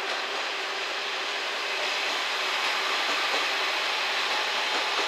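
Two-car KiHa 47 diesel railcar set (JNR KiHa 40 series) pulling out and running past: a steady rushing mix of diesel engine and wheels on the rails, growing slightly louder about two seconds in.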